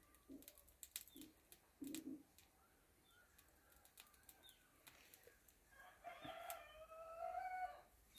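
A rooster crowing faintly near the end, one call about two seconds long that rises slightly in pitch. Before it come scattered light clicks and soft taps.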